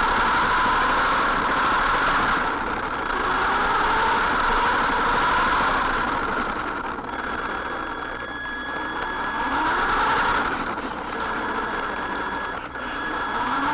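Onboard sound of a radio-controlled Formula 1-style car driving over rough asphalt. A motor whine rises and falls with speed over a steady rushing of tyre and road noise, easing off briefly a few times and climbing again near the end as the car accelerates.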